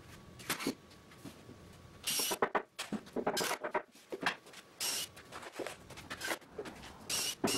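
Workshop handling sounds: a plywood panel and cordless drills being moved and set down on a plywood bench top, a series of short, irregular scrapes and knocks, louder from about two seconds in.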